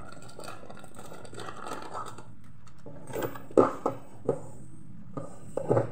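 Plastic bag of tapioca starch crinkling as it is tipped into a rice-cooker pot, with a hand mixing minced meat inside. A few short knocks and squelches come in the second half.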